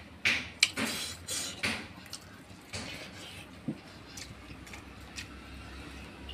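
Fingers mixing rice on a plate: soft squishing and brushing against the plate, busiest in the first two seconds, then a few scattered small clicks.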